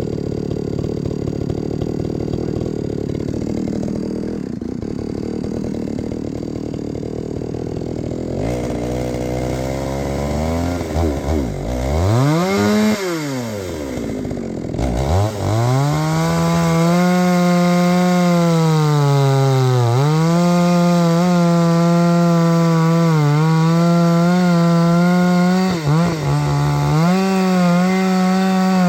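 Two-stroke chainsaw idling, revved up and back down around ten seconds in, then held at high revs from about fifteen seconds, its pitch dipping briefly three times as the chain bites into wood.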